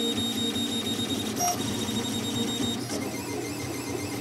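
Solidoodle 3D printer running a print, its stepper motors whirring as the extruder head moves, with the tones shifting pitch each time the head changes direction or speed.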